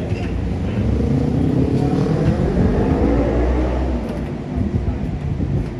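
A road vehicle's engine accelerating in traffic, its note rising for about two seconds over a low rumble that eases off near the end.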